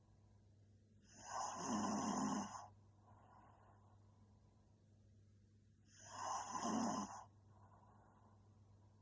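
A young woman snoring in her sleep: two snores about five seconds apart, each lasting over a second, with softer breathing between them.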